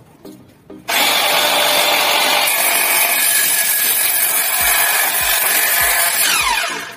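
INGCO CMS2001 cordless mitre saw starting about a second in and cutting through a wooden plank on a bevel, a loud steady whine and cutting noise for about five seconds. Near the end the motor spins down with a falling whine.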